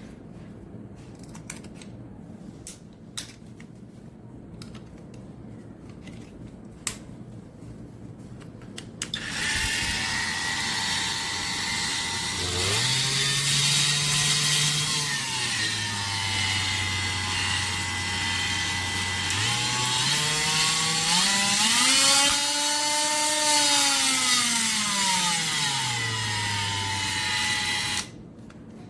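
Cordless oscillating multi-tool: a few faint clicks, then the motor starts about nine seconds in and runs with a steady whine. It speeds up twice, rising in pitch and dropping back, and stops sharply shortly before the end.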